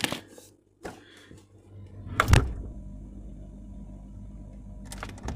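A phone being set down in a refrigerator: a sharp knock about two seconds in, then a steady low hum, with more knocks near the end.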